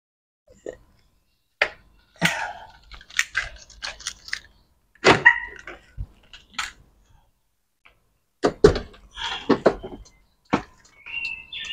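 Clicks and knocks from the Isuzu Panther's driver's door handle and latch as the door is opened by hand. A steady electronic warning tone starts near the end.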